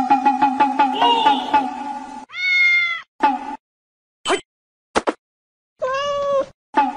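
Domestic cat meowing: two long meows that rise and fall in pitch, about two and a half and six seconds in, with a few short sounds between them and another meow starting near the end. A fading sound with steady tones fills the first two seconds.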